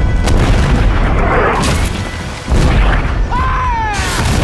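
Broadside of muzzle-loading ship's cannons firing: repeated deep booms over a heavy rumble, with a loud blast about two and a half seconds in.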